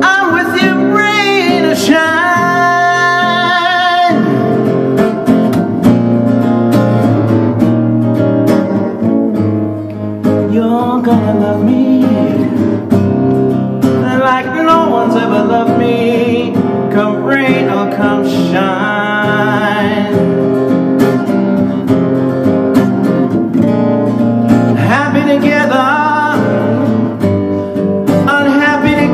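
A man singing over his own acoustic guitar in an up-tempo acoustic blues style. The guitar plays throughout, and the vocal phrases come and go over it.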